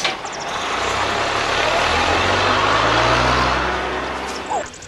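A motor vehicle's engine running, swelling to a peak and then dying away near the end.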